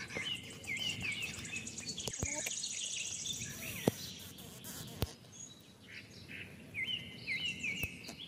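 Outdoor ambience: short high chirps in two quick series, about a second in and near the end, with a fast, high, pulsing insect-like trill between them. A sharp click about four seconds in is the loudest sound.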